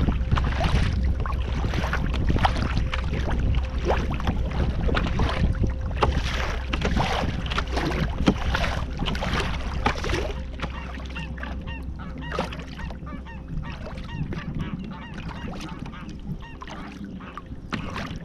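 Wind buffeting the microphone and water splashing and slapping around a sea kayak as it is paddled into a headwind through choppy water. The wind rumble eases about ten seconds in.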